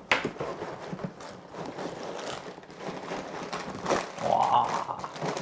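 A large cardboard box being opened by hand: the lid slides and scrapes against the box, and plastic parts bags inside rustle, with a sharp knock just after the start and a short drawn-out tone about four seconds in.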